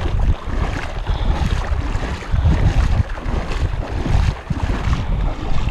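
Wind buffeting the microphone in uneven low gusts, over small waves lapping in shallow seawater.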